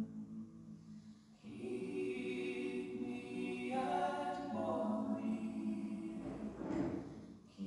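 Slow sacred choral music, sung a cappella in long held chords that change every second or two, one phrase dying away near the start and the next swelling in.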